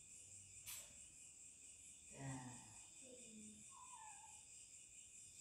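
Near silence: a faint steady high-pitched hum, with a soft voice making a few quiet sounds between about two and four and a half seconds in.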